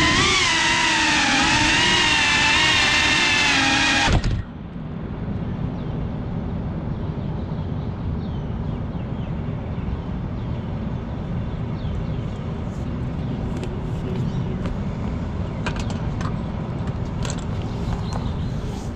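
GEPRC CineLog 35 cinewhoop's motors whining, the pitch rising and falling with the throttle, then a knock about four seconds in as the drone comes down and the motors cut off. After that a steady low background rumble with a few faint clicks.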